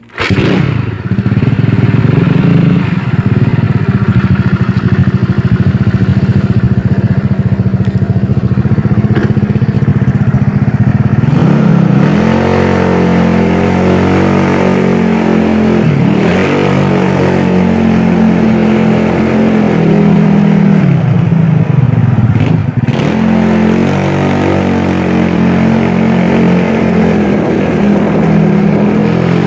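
Yamaha Mio scooter's single-cylinder four-stroke engine, freshly rebuilt with a 58.5 mm bore-up piston and cylinder block. It runs steadily for about the first eleven seconds, then its pitch rises and falls several times as the scooter is ridden. The engine is still being broken in, so it is ridden gently and not revved hard.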